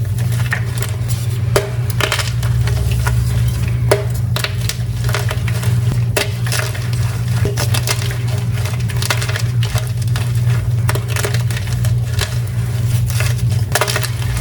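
Pink and purple dyed gym chalk being crushed: a dense run of sharp, irregular crunches and crumbles, with a steady low hum underneath.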